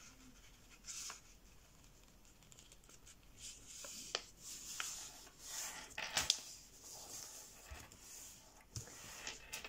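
A sheet of 80 g/m² printer paper being folded and creased flat by hand: faint rustling and rubbing, with a few sharp clicks of the paper about four and six seconds in.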